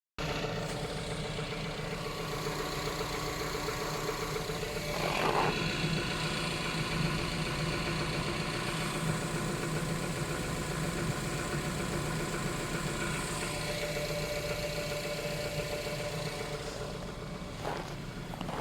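Engine idling cold with a knock that the owner calls suspicious. A brief louder sound comes about five seconds in.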